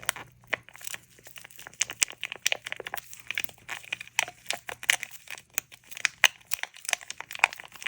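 Irregular small clicks, taps and scrapes of plastic craft supplies being handled while resin is tinted green in a small mixing cup.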